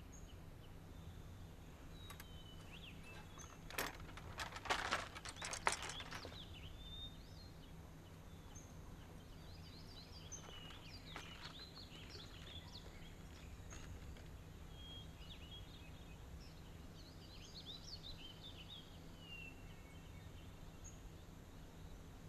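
Quiet outdoor ambience over a low steady hum, with a brief cluster of sharp clicks and crackles about four to six seconds in, then scattered bird chirps.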